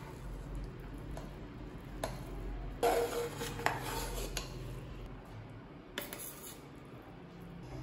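Metal ladle scraping and clinking against the side of an aluminium pressure cooker while stirring cooked rice, with a few sharp taps and the busiest scraping about three seconds in. About six seconds in there is another clink as rice is served onto a steel plate.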